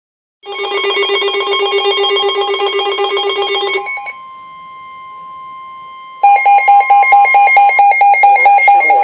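Weather radio alert: a fast warbling electronic alarm that starts abruptly. It breaks off at about four seconds, leaving a single steady tone near 1 kHz, the weather radio's warning alarm tone that signals an imminent warning. The warbling alarm comes back louder about two seconds later.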